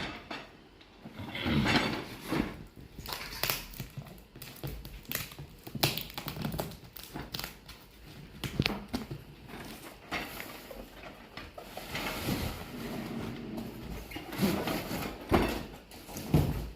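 A parcel being unpacked by hand: irregular knocks, clicks and rustling of packaging and the stand's parts being handled.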